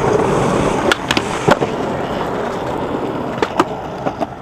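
Skateboard wheels rolling over concrete, loudest in the first second, with a few sharp clacks of the board about one to one and a half seconds in and two more near the end.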